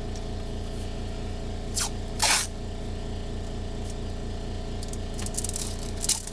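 Masking tape pulled off the roll in short noisy pulls, once or twice about two seconds in and in a quick run near the end, over a steady low machine hum.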